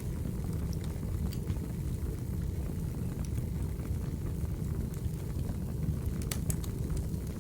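Crackling wood fire: a steady low rumble of burning logs with scattered sharp pops and crackles, two of them close together near the end.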